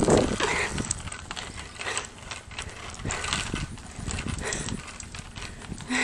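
Footsteps of a person walking on a concrete sidewalk: an uneven series of short knocks and scuffs, with some rubbing from the hand-held camera.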